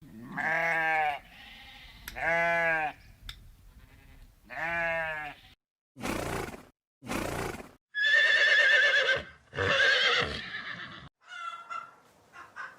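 A sheep bleats three times, then two short breathy blasts follow and two long wavering calls typical of a horse whinnying.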